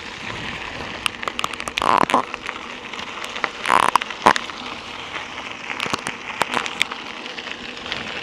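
Mountain bike tyres rolling over a gravel road: a steady crunching hiss with scattered clicks of grit and small stones, and two louder rattling bursts about two and four seconds in.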